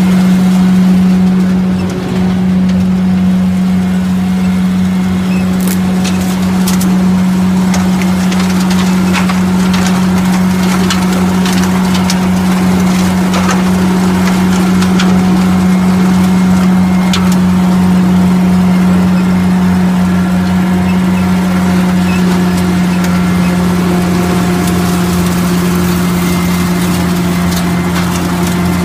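Brouwer BV138 tractor-PTO lawn vacuum running at a steady pitch: the fan and driveline drone together with the tractor's diesel engine. Leaves and bits of debris rattle and tick through the suction head and hose, most often in the middle stretch.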